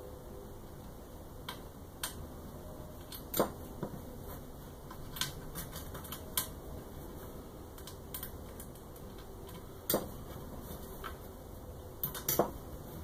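Irregular small clicks and taps of metal hardware being handled as a screw, spring and wing nut are fitted at a corner of a 3D printer's heat bed, with a few louder clicks, over a faint steady hum.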